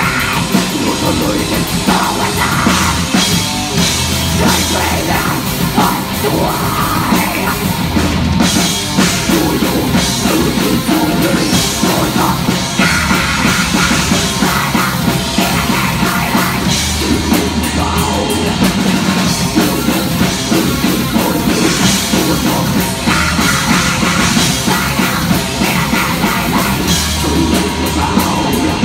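A live extreme metal band playing loud and without a break: distorted electric guitar, bass guitar and a drum kit, with a vocalist's harsh vocals over the top.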